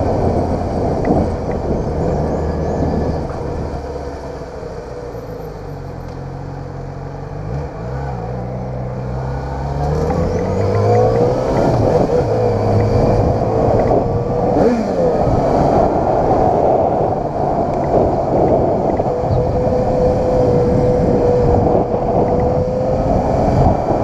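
Yamaha XJ6's 600 cc inline-four engine running under way on the road. It eases off and goes quieter for a few seconds, then gets louder from about ten seconds in as the bike accelerates, with pitch rising and falling through the gears.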